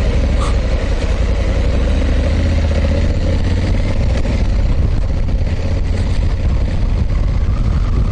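Honda CRF1100L Africa Twin's parallel-twin engine running steadily as the motorcycle is ridden at low speed.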